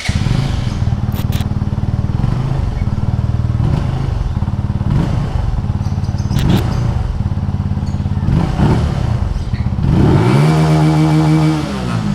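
Benelli TNT 135's 135cc single-cylinder four-stroke engine running steadily, with a couple of sharp clicks, then revved once about ten seconds in, the pitch rising and dropping back near the end.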